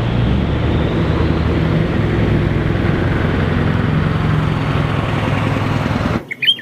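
Truck engine running steadily with a low hum, cutting off suddenly about six seconds in.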